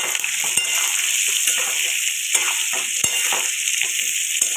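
Mango pieces frying in hot oil in a kadai, sizzling steadily, while a spatula stirs them with scattered clicks and scrapes against the pan.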